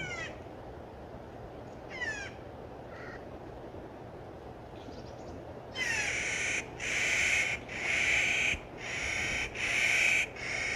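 Clark's nutcracker calls: short, falling notes a couple of seconds apart, then from about six seconds in a quick series of six loud, harsh, grating calls.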